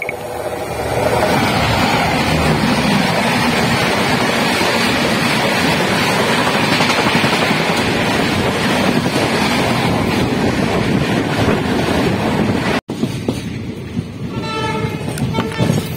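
A passing passenger train rushes by on the adjacent track a few feet from an open coach door, a loud, steady rush of wheels and coaches for about twelve seconds. It cuts off abruptly, giving way to quieter train running noise, and a train horn sounds briefly near the end.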